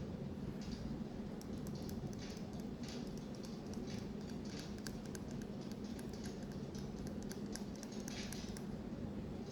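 A burning candle crackling, irregular light clicks coming through most of the pause, over a steady low hum.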